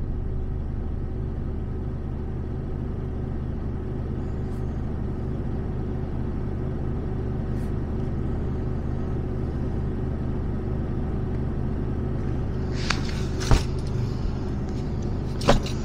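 Truck's diesel engine idling steadily, heard from inside the cab. A few sharp clicks near the end.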